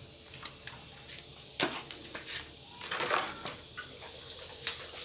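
Boiled balut eggshells being cracked and peeled by hand: scattered sharp taps and crackles, two louder cracks about a second and a half in and near the end, over a faint steady hiss.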